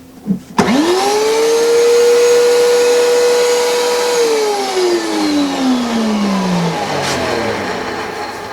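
DeWalt DW735 thickness planer switched on: the motor, cutterhead and chip-ejection blower spin up in under a second to a steady high whine. About four seconds in it is switched off and winds down, the whine falling in pitch and fading.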